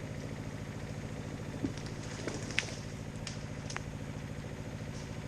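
Diesel engine of a cable-logging system running steadily as a turn of logs is pulled in, with a few short sharp ticks and snaps over it.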